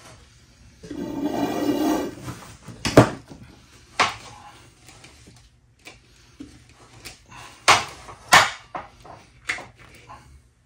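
Loose chainsaw chain clattering against metal as it is fed and wound onto a wire spool: a run of sharp metallic clicks and clinks, several of them loud. About a second in, a drawn-out pitched squeal lasts a second or so.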